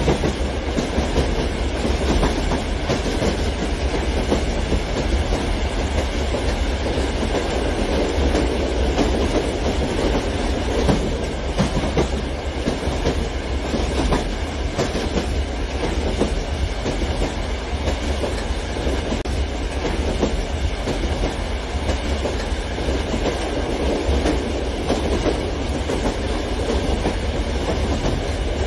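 Model freight train rolling past: a steady rumble of boxcar wheels on the track, with fast, continuous clicking.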